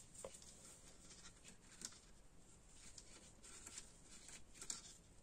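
Faint soft ticks of knitting needles and rustling yarn as stitches are worked, a few small taps scattered through.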